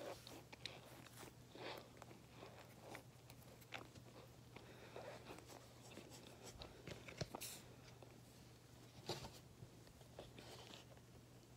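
Mostly near silence with a low steady hum, broken by scattered faint clicks and small mouth and handling noises close to the microphone.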